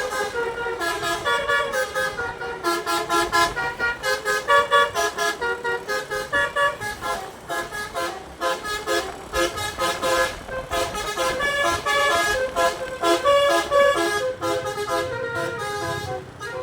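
A bus's DAV D3 musical air horn (telolet) playing a fast melody of short, changing horn notes over and over. A low rumble rises under the horn near the end.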